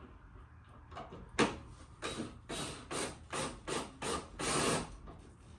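Hand tool work fastening a small screw on a car bumper: a sharp knock, then a run of about eight short rasping strokes, roughly two a second, the last one longer.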